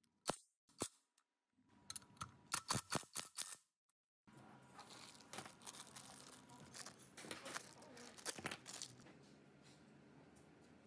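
A metal socket tool clicking and ticking on a bolt, then, after a brief gap, a small plastic bag of crimp terminals crinkling and rustling as it is opened and picked through.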